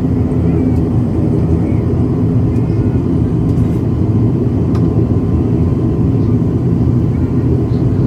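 Cabin noise of an ATR turboprop airliner taxiing on the runway after landing: a loud, steady low drone from the engines and propellers.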